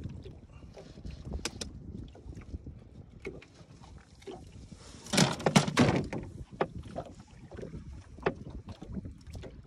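Scattered knocks, taps and rustles of a fish being handled on a boat deck, over a low steady background rumble, with a louder burst of clattering knocks about five seconds in.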